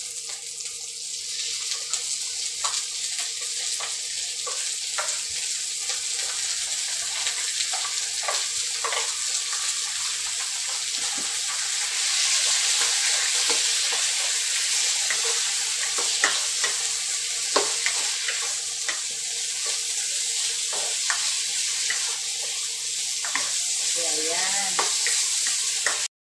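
Marinated pork sizzling in a hot oiled wok while it is stirred with a wooden spatula, the spatula scraping and knocking against the pan now and then. The sizzle grows louder about halfway through.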